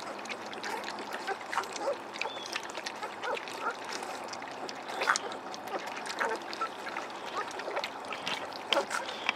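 A litter of Vizsla puppies lapping and slurping milk-soaked kibble (puppy mush) from a metal pan: a wet run of smacking, clicking and splashing, with occasional short squeaks and grunts.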